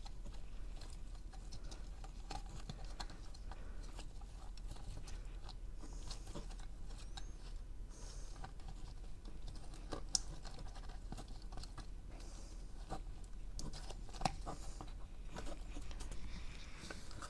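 Handling noise as a battery and circuit board are fitted into a lamp's housing: scattered light clicks and scratches, with a sharper click about ten seconds in and another about fourteen seconds in. A faint steady low hum lies beneath.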